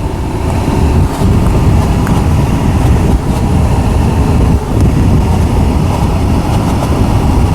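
A Tata Punch's AC blower fan running with the engine on, making a knocking noise and a steady low rumble. The mechanic traces the noise to debris stuck in the blower.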